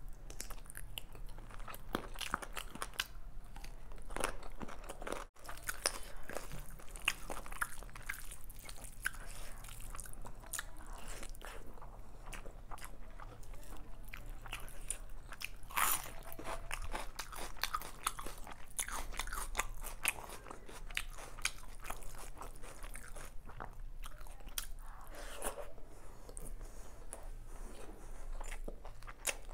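Close-miked eating of chicken biryani by hand: steady chewing with many sharp crunches and clicks. About halfway through comes a louder crunch, in step with bites into a whole raw red onion.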